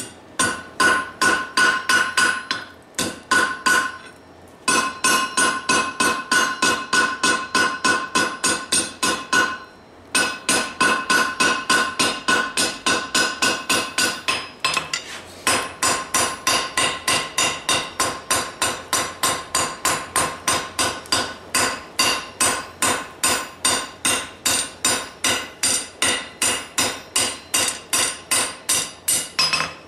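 Hand hammer striking hot rebar on a steel anvil in long, even runs of about three blows a second, each blow ringing. The hammering breaks off briefly about 3, 4.5, 10 and 15 seconds in. The rebar is being forged into a finger with knuckle grooves.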